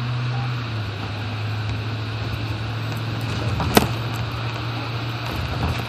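A steady low mechanical hum over a constant hiss, with a sharp click a little under four seconds in and a softer one near the end.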